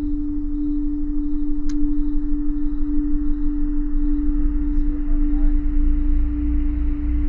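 Horror-score drone: one steady humming tone that wavers slowly, over a deep rumble.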